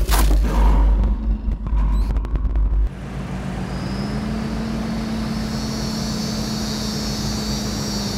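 Trailer sound design: a deep low boom with glitchy clicks under the distributor's logo, cutting off suddenly about three seconds in. It gives way to a steady dark ambient drone with a constant low hum and a high hiss that comes in about a second later.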